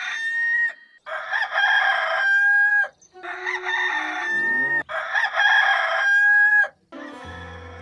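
Hollywood Edge stock rooster crow (Bird Rooster 2 Crow PE021501), a cock-a-doodle-doo repeated about four times in quick succession, each crow ending in a long held note. Near the end a quieter, lower-pitched sound takes over.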